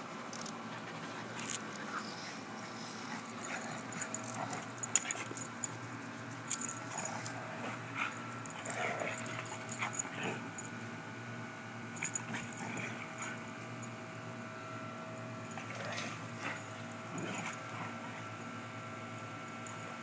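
Two Siberian huskies play-fighting, giving short growls and whines that come and go in scattered bursts over a steady background hum.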